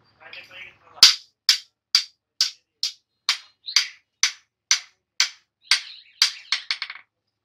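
Hand hammer striking a hot steel chopper blade on an anvil, ringing blows at about two a second, ending in a quick run of lighter taps near the end.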